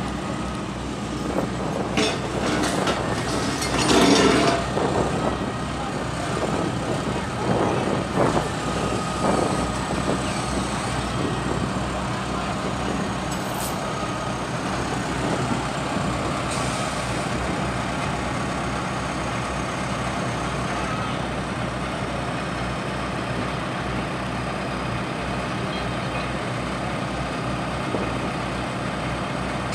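Fire truck engine running steadily, typical of a truck driving its pump to move floodwater. A few louder bursts of noise come in the first ten seconds, the loudest about four seconds in.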